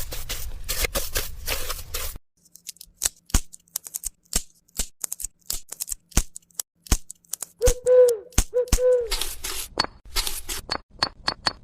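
Small hand-work noises: a brief scraping, then a string of sharp taps and clicks, two short squeaks about eight seconds in, and near the end an even run of about three ticks a second.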